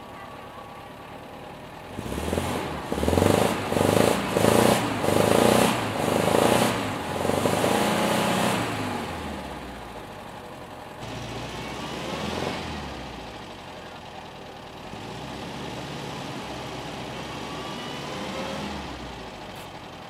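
Volkswagen Kombi van's engine revving hard in repeated surges for several seconds, then revving more gently again, as the van tries to pull out of loose dirt while stuck, its rear wheel spinning.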